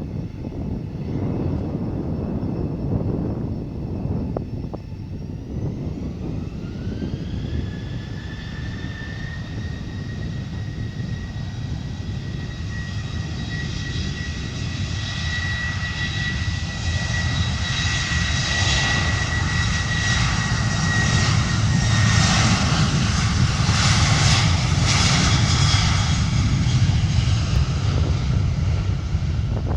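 Boeing 737-800's CFM56-7B turbofan engines spooling up to takeoff power: about six seconds in, a whine rises in pitch and then holds as a steady high whine over a deep roar. The sound grows louder over the second half as the jet rolls for takeoff.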